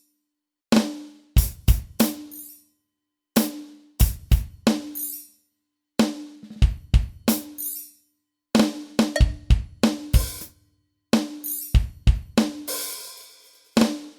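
Yamaha DTX700K electronic drum kit played in short fills of three to six hits, each phrase cut off into dead silence. Many hits leave a short pitched ring, and about twelve seconds in a longer crash-like wash sustains for about a second.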